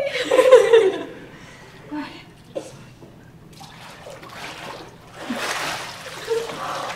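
Water splashing and sloshing in a baptistery pool as a person is immersed and lifted back out, the larger splash coming near the end. A short burst of voice comes about the start.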